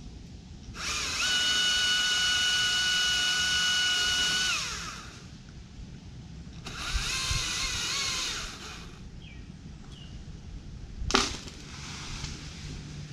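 Battery chainsaw spinning up and running at a steady high whine for about four seconds, then winding down. A second, shorter run follows, with a wavering pitch. A single sharp knock comes near the end.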